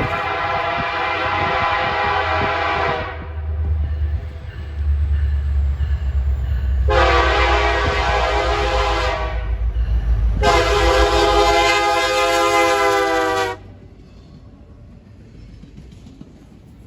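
Diesel locomotive air horn sounding three long blasts, each a chord of several notes: the first is already sounding and ends about three seconds in, the second comes about seven seconds in and the third about ten seconds in. A deep engine rumble runs under the blasts, and the rumble and the horn cut off together near the end, leaving only a faint background.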